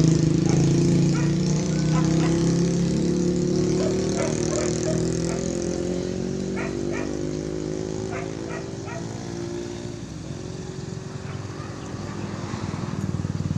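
A small engine runs steadily, its pitch slowly rising as it fades over about ten seconds, then growing louder again near the end. Over it come faint, repeated barks and yelps of hunting dogs in pursuit.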